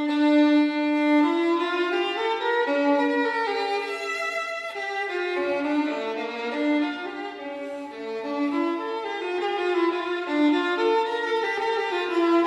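Background music: a violin playing a flowing melody of sustained notes.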